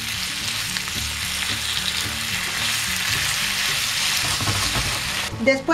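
Squid pieces frying with onion and garlic in hot olive oil in a pan: a steady sizzle while a wooden spatula stirs them. The sizzle cuts off suddenly near the end.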